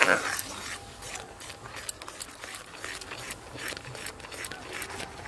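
A metal spatula stirring rice flour into milk in a metal wok, scraping and ticking against the pan in quick, irregular strokes. The mix is being stirred without a break to keep lumps from forming.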